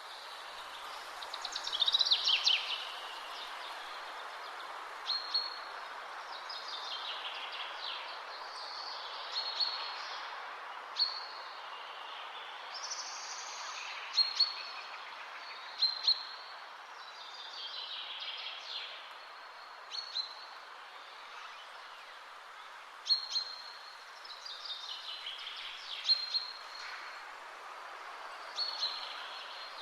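Several songbirds singing and calling: short high chirps repeat every second or two, mixed with whistled phrases that fall in pitch, over a steady background hiss.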